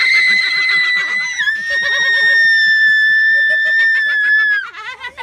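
A teenage girl's long, high-pitched scream of fright, held for about five seconds, dropping slightly in pitch about a second and a half in and breaking off near the end, with laughter from others underneath.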